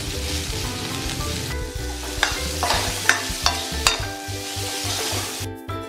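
Chopped onion sizzling in hot oil in a kadai, freshly added to a tempering of mustard seeds, urad dal and curry leaves, while a steel ladle stirs it with several sharp clicks against the pan. Soft background music with a beat runs underneath, and the sizzle drops away near the end.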